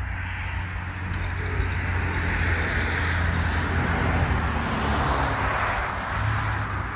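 A vehicle passing on the road, its tyre noise swelling to a peak in the middle and fading away near the end, over a steady low hum.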